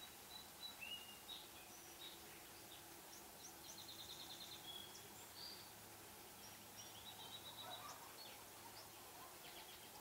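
Faint bird calls over quiet marsh ambience: scattered short high chirps and whistles, with a quick trill about four seconds in and more calls a few seconds later.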